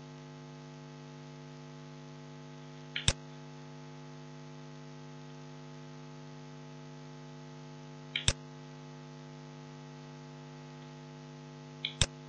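Steady electrical mains hum on the recording, broken three times by a computer mouse click, each a quick press-and-release pair, about three, eight and twelve seconds in.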